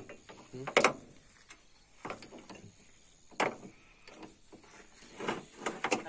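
Steel links of a combine harvester's new feeder chain clinking and clanking against each other and the sprocket as the chain is fitted by hand with pliers: about five separate sharp metallic clanks.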